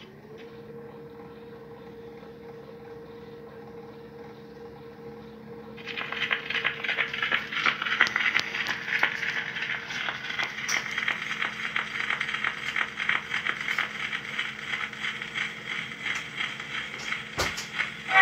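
Edison cylinder phonograph starting up: the spring motor runs with a steady hum as the mandrel turns. About six seconds in, the reproducer meets the Blue Amberol cylinder, and loud surface hiss and crackle from the run-in groove follows, with a sharp click near the end, just before the recording begins.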